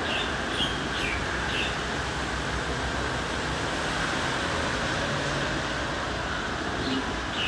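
Steady distant rumble and hiss of city traffic and an elevated metro train approaching far off along the viaduct, with a few short bird chirps in the first two seconds and again near the end.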